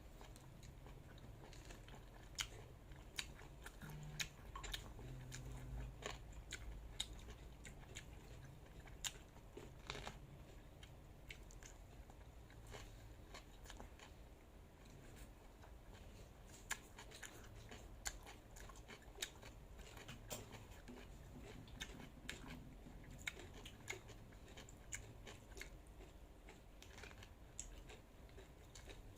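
Close-up eating sounds: quiet chewing and biting, with sharp crunchy clicks at irregular intervals of a second or two.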